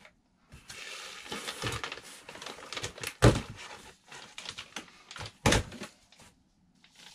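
Plastic packaging bags and bubble wrap rustling and crinkling as model-plane parts are handled in a cardboard box. Two sharper knocks stand out, about three seconds in and about five and a half seconds in, the first the louder.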